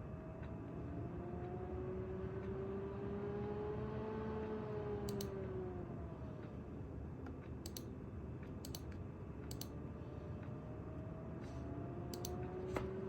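850 W PC power supply buzzing, a faint hum whose pitch slowly rises and falls over a few seconds, with a handful of sharp clicks scattered through it.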